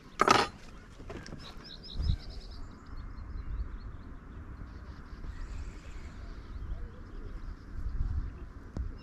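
A small bird singing phrases of quick, repeated high notes, over a low rumble, with a brief loud burst of noise just at the start.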